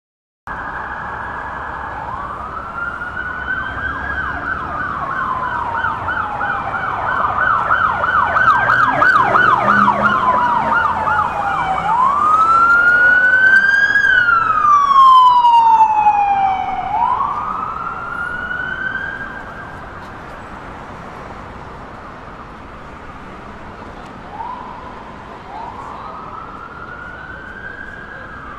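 Emergency-vehicle siren wailing in slow rising and falling sweeps, with a stretch of rapid yelping a few seconds in. It is loud through the first half, then drops to a lower level for the last third.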